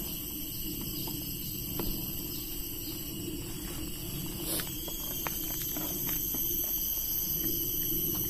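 A few light clicks and taps as a brush cutter's engine and fuel tank are handled, most of them around the middle, over a steady high-pitched background tone. The engine is not running.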